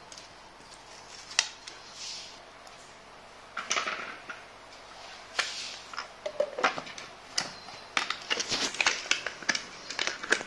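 Ganesh pull-cord vegetable chopper at work on tomato. First a few knife clicks and tomato pieces dropped into the plastic bowl, with the lid clicking shut. From about six seconds in there is a fast, busy run of clicks and rasps as the cord is pulled again and again and the blades spin through the tomato.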